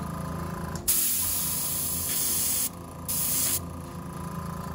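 Central Pneumatic airbrush hissing as it sprays leather dye onto cardboard in two bursts: a long one of about two seconds starting about a second in, then a short one of about half a second. A low steady hum runs underneath.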